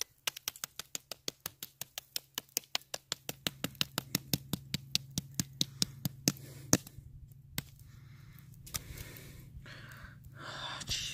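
Fireworks popping in a fast, even run of sharp cracks, about four or five a second, which breaks off about seven seconds in. A few scattered pops and a faint hiss follow, with the hiss louder near the end.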